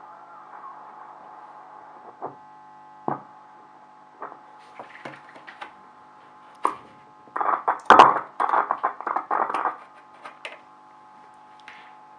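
Sound from a VE301W Volksempfänger valve radio's loudspeaker while it is being tuned: a steady hum with crackling static over it, and scattered pops. A dense burst of loud crackles comes in the middle, peaking about eight seconds in.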